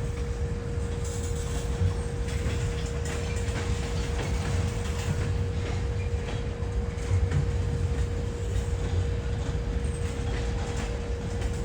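Railroad train running: a steady low rumble with a constant hum.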